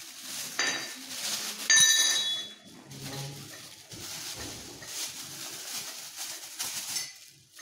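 Clear plastic packaging crinkling and rustling as mixer attachments are unwrapped by hand, with a short bright metallic ring about two seconds in, the loudest moment, as a metal attachment knocks against something.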